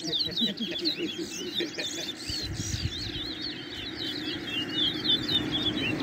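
Caged towa-towa seed finches singing a fast, continuous twittering song of quick chirped notes, over a low murmur of voices.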